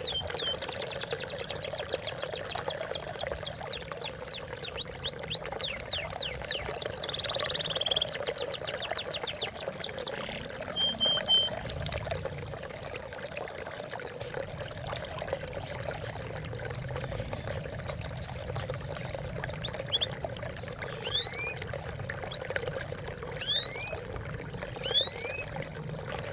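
Water trickling and splashing steadily, with a bird's fast trilled runs of high chirps through the first half, then spaced rising chirps near the end.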